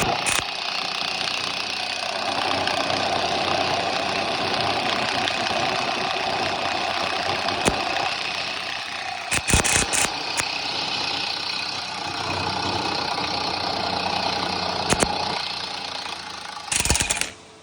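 Impact driver hammering steadily as it drives an M24 Vario combined tap drill into steel, drilling and cutting the thread, with a few sharp knocks along the way. It stops suddenly near the end.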